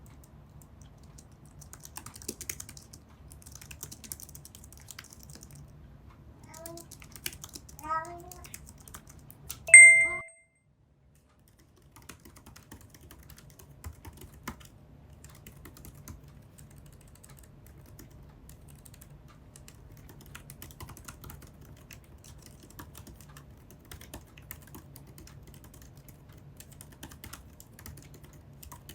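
Typing on an Apple Magic Keyboard's scissor-switch keys: a stream of light, quick key clicks. A little before halfway there are a few short chirpy sounds and then a loud bright ding, followed by a brief dead silence before the typing carries on.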